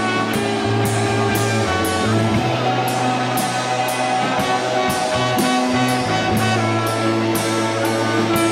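Live rock band playing an instrumental passage: a bass line of long held low notes, guitar, and a drum kit with a cymbal struck about twice a second.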